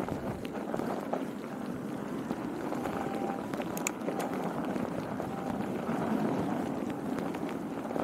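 Fat-tyre bicycle rolling fast over packed snow: a steady crunching hiss from the tyres, with a sharp click about four seconds in.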